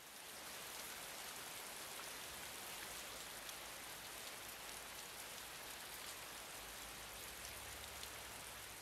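A steady, even hiss with faint scattered ticks in it, cut in and out abruptly.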